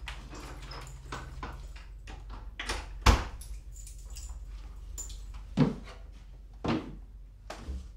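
A house's front door being shut, closing with a sharp bang about three seconds in, followed by two duller thumps.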